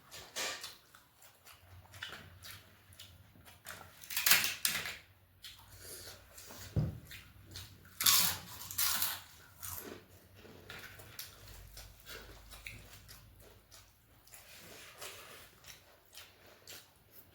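Close-miked eating: crisp crunching bites of papad, loudest twice, about four and eight seconds in, with wet chewing and smacking clicks between.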